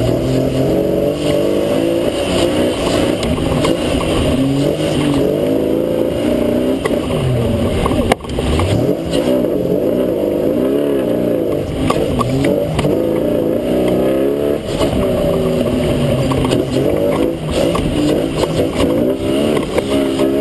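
Modified Toyota FJ40 offroad racer's engine, heard from inside its open cab, revving up and down repeatedly as it is driven through mud. A single sharp knock about eight seconds in.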